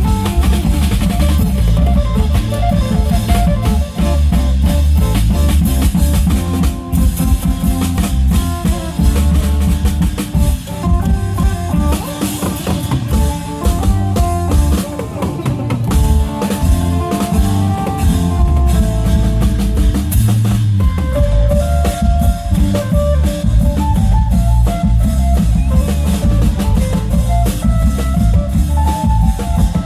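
Isan long-drum (klong yao) ensemble playing a lively, driving rhythm with heavy bass drum, under an amplified phin lute melody.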